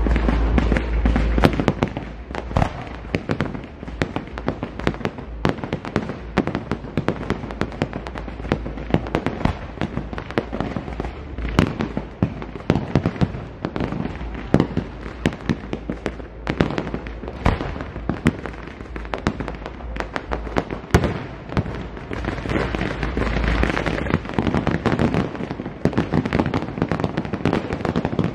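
Fireworks display: a continuous barrage of aerial shells bursting, with many sharp bangs and pops each second. Heavier low booms come right at the start and again about two-thirds of the way through.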